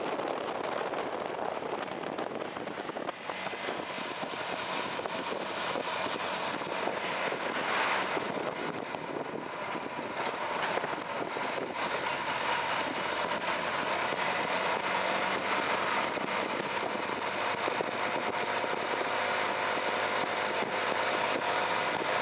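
Motorcycle-based tuktuk running along a road: a small engine under way with steady wind and road noise.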